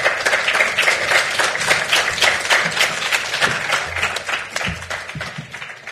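Audience applauding: dense, loud clapping that gradually tails off near the end.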